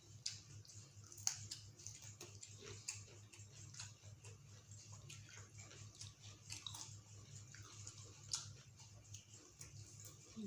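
Quiet eating sounds: chewing and mouth clicks with scattered soft ticks, over a low steady hum.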